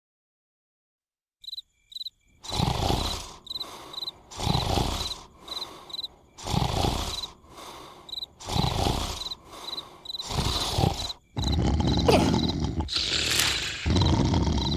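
A cartoon character snoring, one loud snore about every two seconds, over a steady chirping of crickets. In the last few seconds the snoring runs into a longer, louder stretch.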